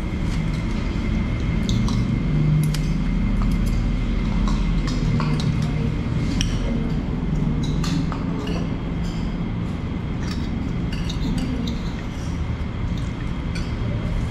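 Metal cutlery clinking against plates and cups while people eat, scattered light clinks throughout, over a steady low hum of the dining room and a faint steady high whine.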